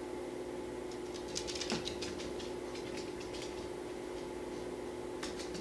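A Yorkshire Terrier's claws ticking and pattering on a wooden floor as the dog trots about, in scattered light clicks, over a steady low hum.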